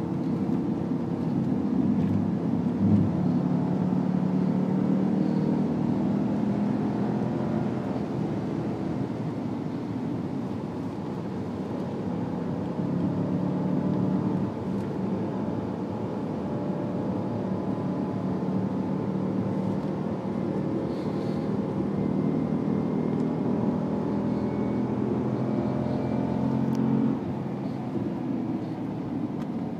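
A 2012 Jeep Grand Cherokee SRT8's 6.4-litre HEMI V8, heard from inside the cabin, pulling hard around a track lap. The engine pitch climbs under throttle and drops suddenly about halfway through and again near the end, as the car lifts off or shifts.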